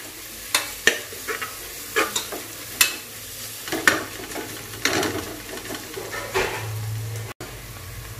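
Sliced onions and green chillies sizzling in oil in a pressure cooker as they sauté to softness, stirred with a slotted metal spatula that scrapes and knocks against the pot every second or so.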